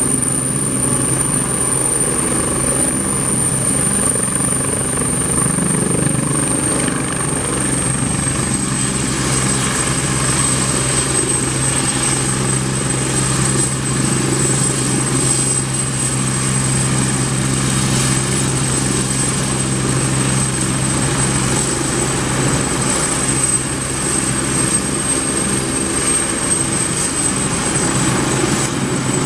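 Airbus H175 helicopter running, its turbine engines giving a steady high-pitched whine over the low drone of the rotors. The whine drops slightly in pitch about eight seconds in.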